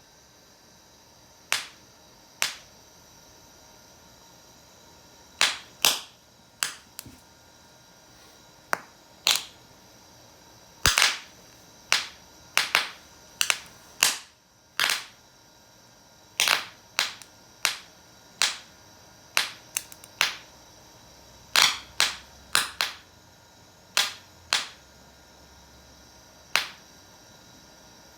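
About thirty sharp bangs at irregular intervals, often a second or less apart, from a homemade reusable firecracker substitute, a 'bucket of bangs'.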